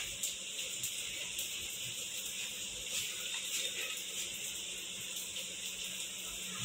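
A few faint taps of a metal spoon against ceramic mugs as thick whipped dalgona coffee is spooned onto cold milk, over a steady hiss.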